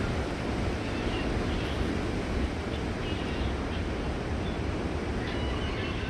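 Wind buffeting the microphone, a steady low rumbling rush, with a few faint short high chirps, most clearly near the end.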